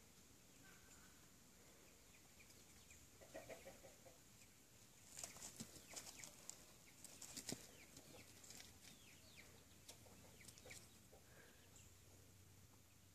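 Faint bird calls, short falling chirps and a clucking call, among scattered light ticks over a low steady hiss.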